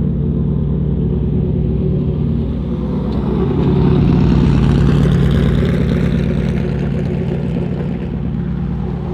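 A large vehicle engine running steadily at a low, even pitch, growing louder about four seconds in and easing off again.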